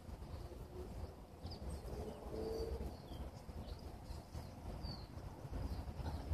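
Faint outdoor background: a steady low rumble with a few short, high bird chirps scattered through it.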